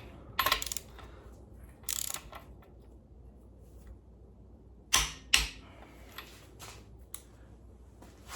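3/8-inch click-type torque wrench, on an adapter, ratcheting and clicking as bearing cap bolts are tightened to 80 foot-pounds. Sharp clicks come in short clusters about half a second, two seconds and five seconds in, with fainter single clicks after.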